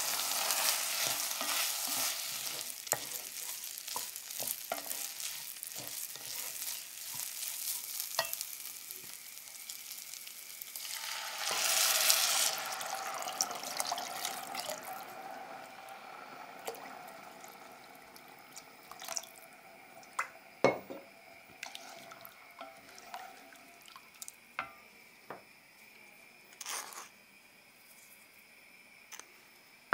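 Rice grains sizzling in hot butter and oil in an enamelled cast-iron pot, stirred and scraped with a wooden spatula, with many small clicks. About eleven seconds in, water poured into the hot pot brings a loud rush of sizzle that fades to a faint simmer, with a few sharp knocks of the spatula against the pot.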